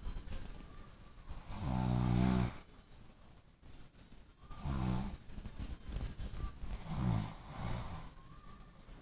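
Snoring in sleep: one loud, drawn-out snore about two seconds in, then three shorter snores in the second half, with quiet breathing gaps between.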